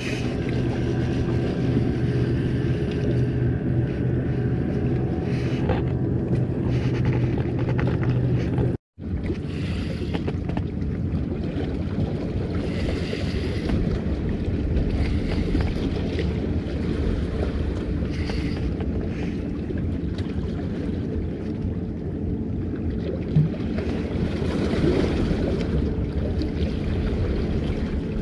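Wind buffeting the microphone with sea waves washing in every few seconds. A low steady hum sits under it for the first several seconds, and the sound cuts out completely for a moment about nine seconds in.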